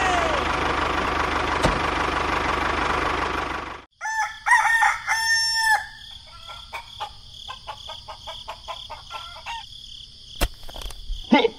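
A rooster crowing over a loud, steady rushing noise that cuts off abruptly about four seconds in. Short pitched calls follow, then a run of light clicks and a sharp knock or two near the end.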